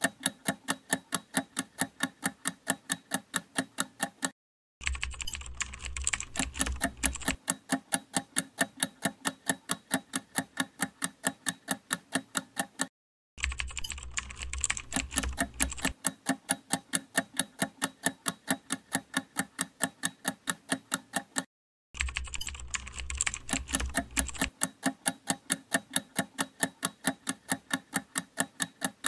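Countdown-timer ticking sound effect: rapid, even clicks at about four to five a second. It stops briefly three times and restarts each time with a low rumble under it for a couple of seconds.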